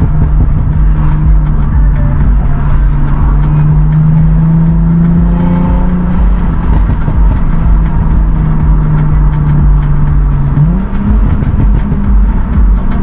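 Lexus IS350's 3.5-litre V6 (2GR-FSE) running through an Invidia midpipe and Manzo axle-back exhaust, holding steady revs for most of the stretch, then climbing in pitch as the revs rise near the end.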